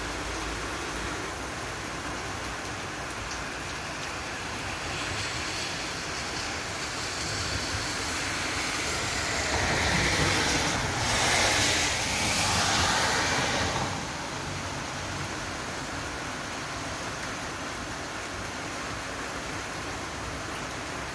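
Steady hiss of rain falling. About ten seconds in, a louder rush of noise swells for roughly four seconds and then fades back.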